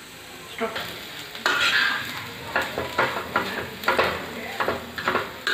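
A steel spoon stirring and mashing potato-and-onion stuffing as it fries in a nonstick kadhai, scraping the pan in a run of short strokes that begins under a second in, over a light sizzle.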